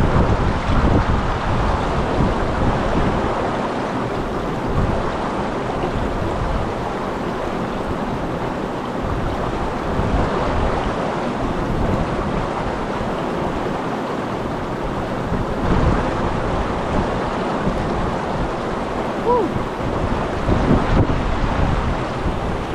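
Waterfall's rushing water, a steady dense roar, with wind buffeting the microphone in uneven low rumbles.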